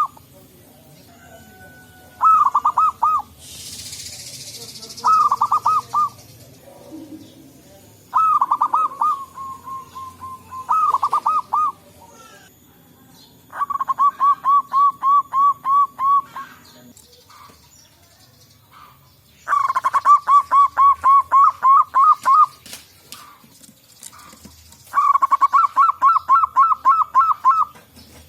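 Zebra doves (perkutut) cooing: seven phrases of rapid staccato coo notes, each a second or two long and the last three longer. A brief soft hiss comes a few seconds in.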